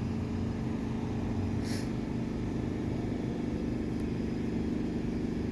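A steady motor or engine hum, with a brief rustle a little under two seconds in.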